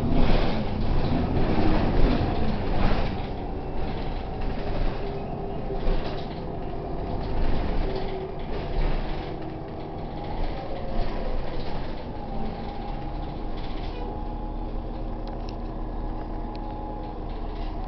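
Cabin noise of a New Flyer low-floor bus under way: the engine runs with frequent rattles and knocks from the body for the first few seconds. It then settles quieter and steadier, with a steady whine in the last few seconds as the bus creeps along.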